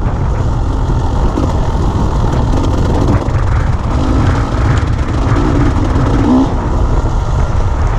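Dirt bike engine running as the bike rides slowly over a rutted dirt track, a steady low rumble throughout.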